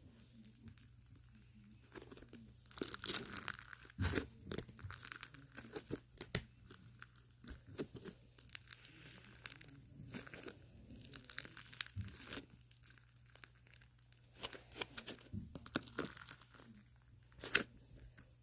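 Irregular close rustling and crinkling, with scattered sharp clicks, over a steady low hum.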